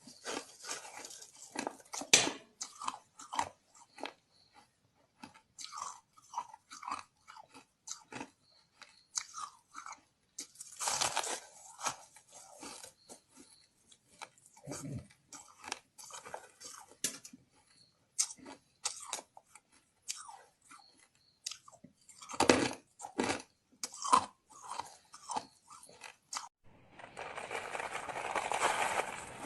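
Ice being bitten and chewed close to the microphone: irregular sharp cracks and crunches with short pauses between bites. Near the end there are a few seconds of steadier, continuous crunching.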